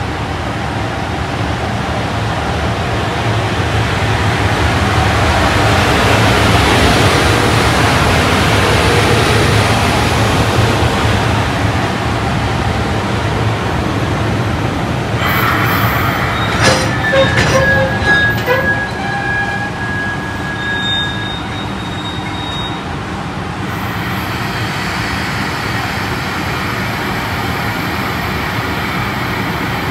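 Train running on the rails at a station: a loud, steady rumble of wheels that builds and then eases off. Clicks and a few short high-pitched squeals come about halfway through, and a steadier rumble carries on to the end.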